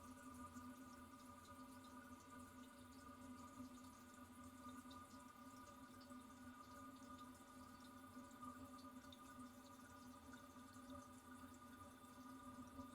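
Very faint toilet cistern refilling after a flush: a steady low hum with light drips.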